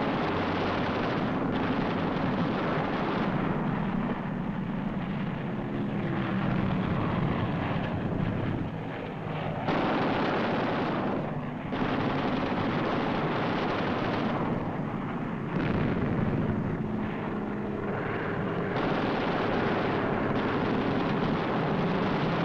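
Aircraft engines droning with gunfire, a combat sound track that changes abruptly every few seconds.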